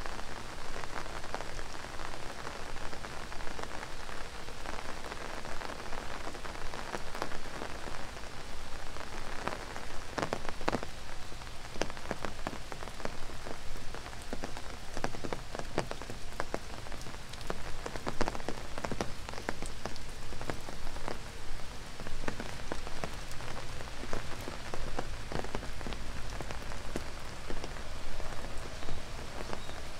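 Steady rain falling, with many sharp, close drop hits scattered through it.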